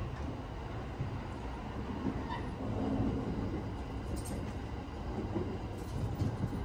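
Steady low rumble of the Cassiopeia sleeper train running, heard from inside a passenger car, with a few faint clicks in the second half.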